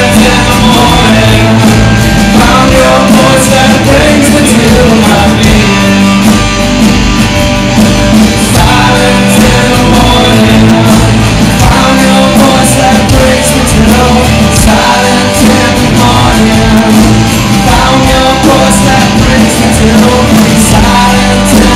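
Live rock band playing loud: electric guitars, acoustic guitar, bass guitar and drum kit, with reverberation from a large room.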